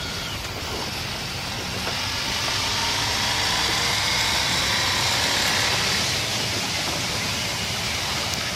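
Honda ST1300 Pan European's V4 engine accelerating, its pitch rising over the first few seconds. Wind rush builds and then holds steady as the motorcycle reaches road speed.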